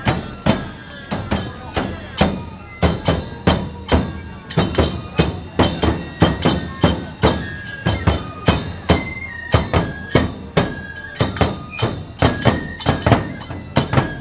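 Neputa festival hayashi: taiko drums beating a steady rhythm of about three strikes a second, with a bamboo flute playing a melody of held notes over them.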